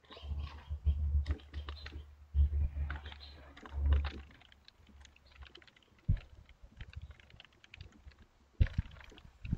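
Typing on a computer keyboard: an irregular patter of key clicks, with a few heavier low thumps during the first four seconds.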